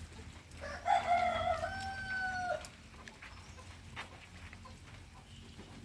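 A rooster crowing once, a single call of about two seconds that drops to a long held note, over a faint low steady hum.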